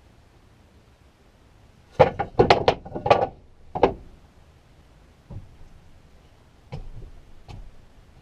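Wooden knocks: about six sharp ones in quick succession around two to four seconds in, then a few fainter ones, as wooden pieces for the floor supports are handled and knocked into place.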